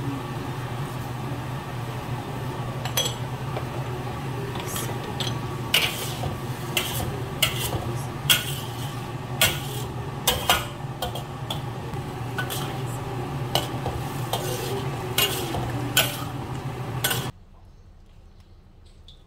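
A metal ladle stirring bamboo shoots and chicken in sauce in a wok, knocking and scraping against the pan many times over a steady low hum. The sound cuts off abruptly near the end.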